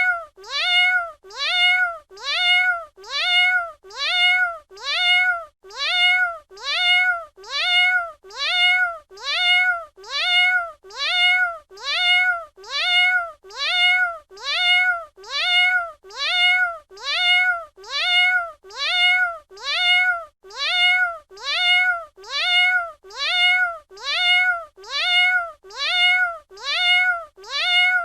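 Domestic cat meowing: the same short meow, rising then falling in pitch, repeated at an even pace of about one a second, like a loop.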